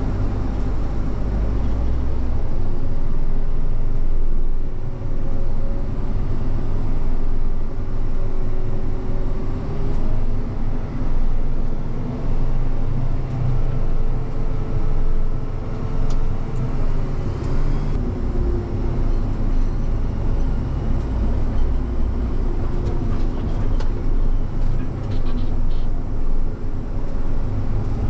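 Vehicle engine running steadily on the move, with a strong low rumble and a faint whine that wavers up and down in pitch.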